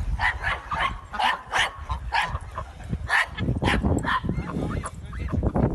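A dog barking and yipping in a rapid series of short, high barks, about two a second, over a low rumble.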